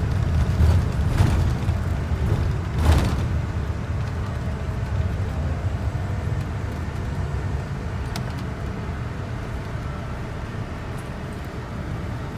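Steady low rumble of a car driving along a road, engine and tyre noise heard from the moving car, with two brief louder rushes about one and three seconds in.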